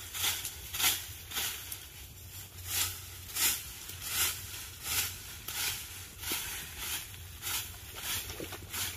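A rake scraping through dry leaves and ground litter in regular strokes, about three every two seconds.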